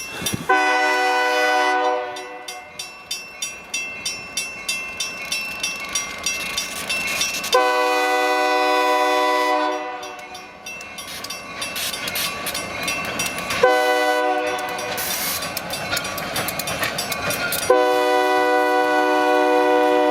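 EMD SD40 freight locomotive sounding its multi-chime air horn for a grade crossing. It gives a short blast near the start, a longer one about seven seconds in, another about five seconds later, and a final long blast that runs on. Between the blasts a crossing-signal bell clangs about twice a second.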